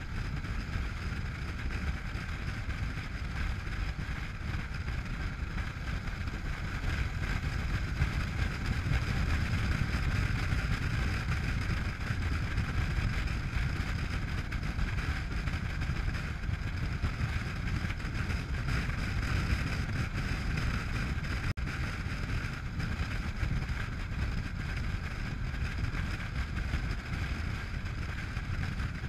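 Steady wind rush buffeting the camera microphone on a moving motorcycle, over the drone of a Honda NC700X's parallel-twin engine at cruising speed.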